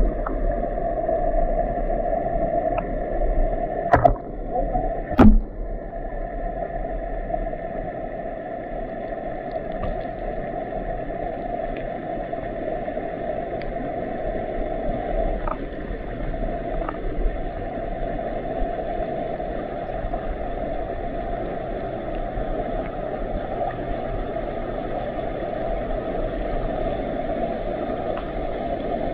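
Stream current heard underwater: a steady, muffled rush of flowing water and bubbles from the riffle, with a couple of sharp knocks about four and five seconds in.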